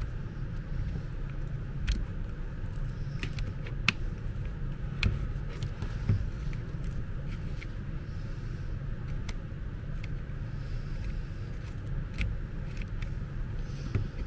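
Scattered small clicks and taps of plastic and metal parts as a Makita DDF485 cordless drill's chuck, gearbox and motor assembly is handled and fitted together, over a steady low hum.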